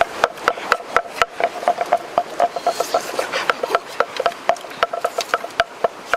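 Pestle pounding in a mortar: a quick, even run of sharp knocks, about four a second.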